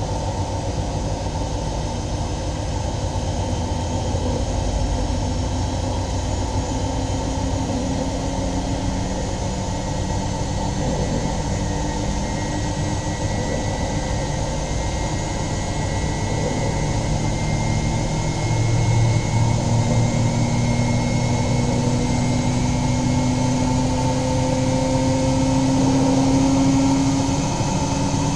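Miele Novotronic W923 front-loading washing machine running: a steady mechanical drone with a motor hum that strengthens and slowly rises in pitch through the second half, easing back near the end.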